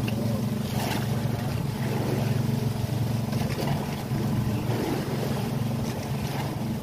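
A small engine on an outrigger fishing boat running steadily: an even, unchanging low hum, with a light wash of wind and water over it.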